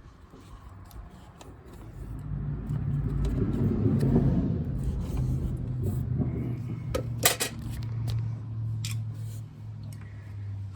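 A motor vehicle engine running steadily, swelling over the first few seconds and then holding, with a couple of sharp metallic clicks of hand tools about seven seconds in.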